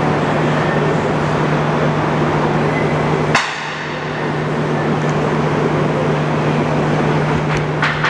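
Forrest Model 204 vertical bandsaw running with its scallop-edge knife blade: a steady motor hum under an even noise. A sharp click comes a little over three seconds in, the sound dips briefly after it, and there are a few light ticks near the end.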